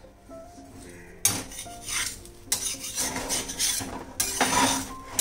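Spatula scraping and knocking against an iron tawa as a paratha is moved on the hot pan. There are several scraping strokes, with a sharp knock about a second in and the longest scrape near the end.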